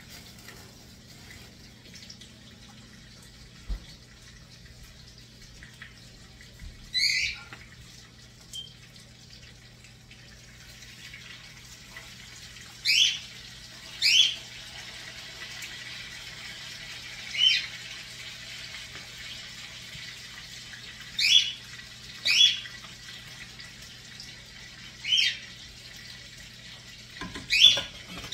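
A small bird chirping: about nine short, high chirps, each falling in pitch, at irregular spacing, over a faint steady hiss and a low hum.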